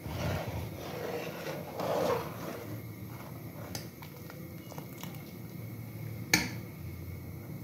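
A metal spoon stirring and scooping thick kheer in a steel pot, loudest in the first two seconds or so. A few faint clicks follow, and one sharp click comes about six seconds in.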